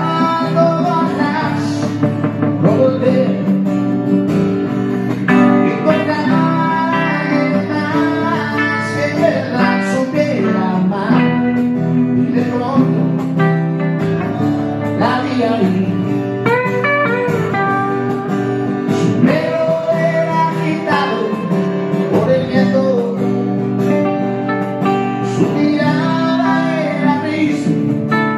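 Live acoustic band music led by guitar, playing steadily, with a melodic line that bends up and down over a sustained low accompaniment.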